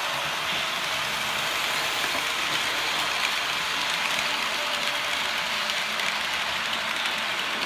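Märklin HO-scale model passenger train running past on three-rail track: a steady whirring rattle of wheels and motor with faint light ticks, a little louder in the middle as it passes.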